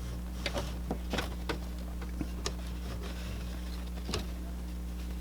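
Scattered light clicks and taps of plastic parts being handled inside an Epson ET-8550 printer, over a steady low electrical hum.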